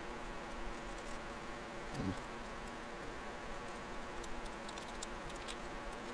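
Faint, scattered small clicks of a nylon-insert lock nut being spun by hand onto a handlebar bracket bolt, with one soft knock about two seconds in, over a low steady hum.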